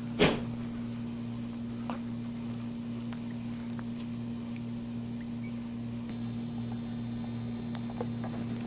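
A steady low hum, with one sharp click about a quarter second in and a few faint ticks after it.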